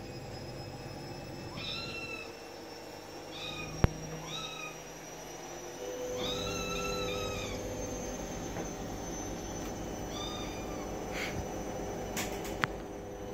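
Kitten meowing: about five high-pitched meows, each rising then falling in pitch, the one about six seconds in the longest. A sharp click about four seconds in, and a smaller one near the end.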